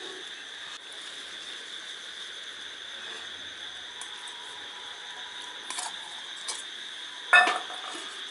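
Steady high-pitched trilling of crickets. A couple of faint ticks come about six seconds in, and one brief loud knock near the end.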